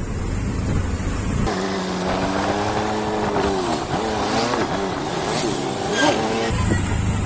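Auto-rickshaw engine running in city traffic, heard from the passenger seat. About one and a half seconds in, the low rumble gives way for some five seconds to a pitched engine note that holds and then rises and falls.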